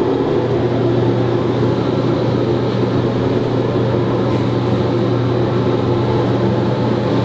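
Tower elevator running, a steady mechanical hum heard from inside the moving cab.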